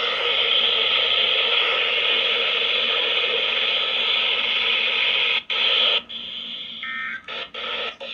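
Radio static: a steady hiss from a radio receiver with no signal on it. In the second half it drops out briefly several times, and a short tone sounds near the end.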